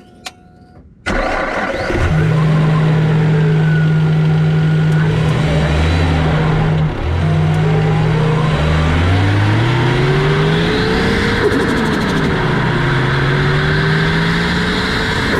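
Turbocharged car engine heard through its 3-inch stainless steel turbo intake pipe and pod filter. It starts about a second in, settles into a steady note, then is revved several times, the highest rev about 11 seconds in, before dropping back.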